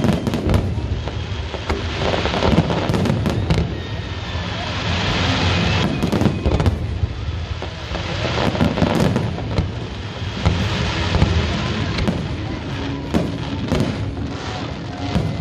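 Fireworks display: aerial shells bursting in a rapid, irregular run of bangs, with stretches of crackling hiss between them.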